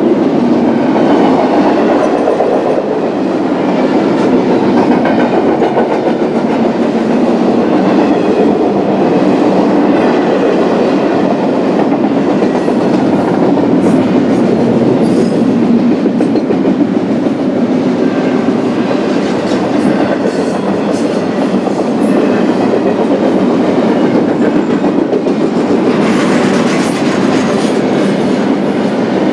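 Freight cars of a BNSF intermodal stack train rolling past on steel wheels, a steady loud rumble of wheels on the rails, turning harsher and hissier for a couple of seconds near the end.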